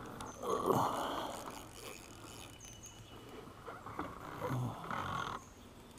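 Ultralight spinning reel being worked against a hooked catfish, its mechanism and drag clicking as the line is fought. There is a louder rush of handling noise about a second in.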